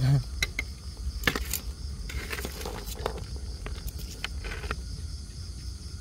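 Steady, pulsing chirping of insects, with scattered light clicks and short rustles over it; the sharpest click comes about a second in.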